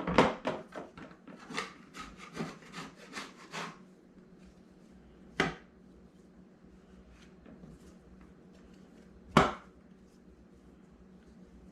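Hands patting and pressing sticky cookie dough on a wooden cutting board: a quick run of soft pats and knocks over the first few seconds, then two single sharper knocks on the wood later on.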